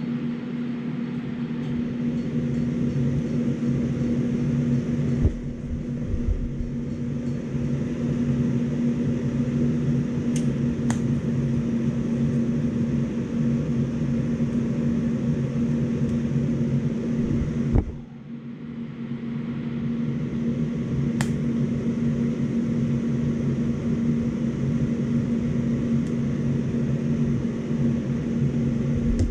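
TIG welding machine humming steadily with its cooling fan running while a steel shift shaft is TIG-welded. The hum dips briefly twice, about five and eighteen seconds in, and a few faint clicks sound.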